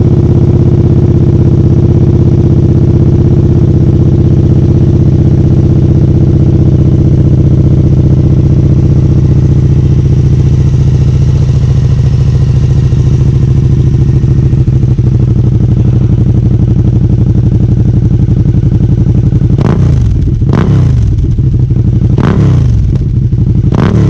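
Suzuki SV650 V-twin idling steadily through a newly fitted aftermarket slip-on muffler, with the catalytic converter still in place. Near the end the throttle is blipped about four times in quick revs. The note is bassy and full, not that really loud.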